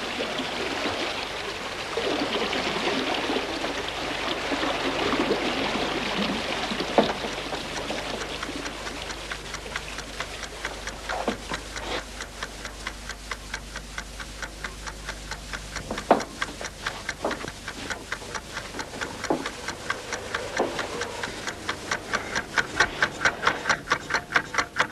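A steady rush of flowing water, then a fast, even ticking that starts about halfway through and grows louder toward the end, with a few sharp knocks in between.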